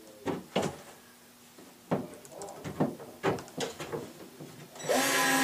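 Scattered knocks and taps of wooden cabinet panels being handled and pushed together, then near the end a power drill starts up, driving a screw into the base tray.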